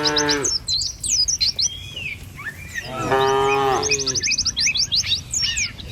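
Cattle mooing: one long moo trails off about half a second in, and another starts about three seconds in and lasts just over a second. Small birds chirp in quick high trills throughout.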